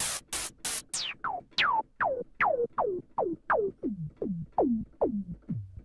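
Logic's ES P synthesizer plays white noise through a filter with its resonance turned fully up, in short repeated notes about three a second. Each note is a quick downward pitch drop, and the notes sink lower as the filter frequency is swept down, from hissy zaps at the start to a low, kick-drum-like thud by the end.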